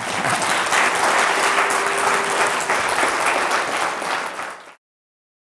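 Audience applauding, many people clapping at once; the sound cuts off suddenly near the end.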